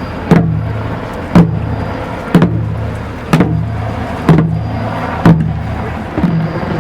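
A drum beaten slowly and steadily, about one stroke a second, each stroke followed by a low ringing boom.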